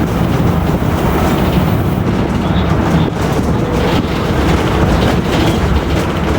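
Bus running on the road: a steady rumble with the whine of its rear differential.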